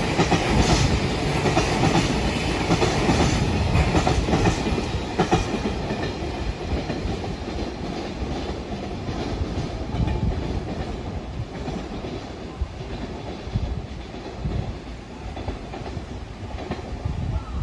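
A train running past, its wheels clacking over rail joints, the sound loudest in the first few seconds and slowly fading away.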